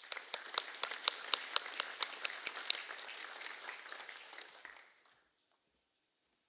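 Audience of students applauding, with a few close claps standing out at about four a second; the applause dies away about five seconds in.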